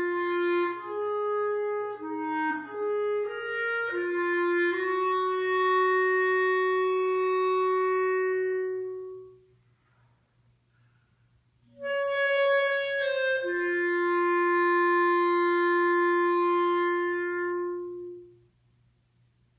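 A single wind instrument playing a slow solo line: a few short changing notes lead into a long held note. After a pause of about two seconds it plays a short rising figure and another long held note, which stops near the end.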